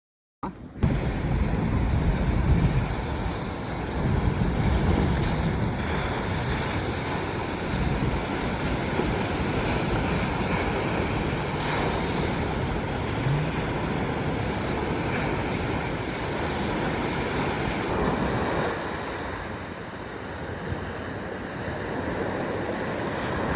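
Ocean surf and wind at the shore, with wind buffeting the microphone in a low rumble.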